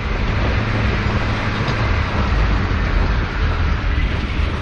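Steady running noise of an open-sided passenger truck on a mountain road, heard from its open passenger bed: engine and road rumble, continuous and even.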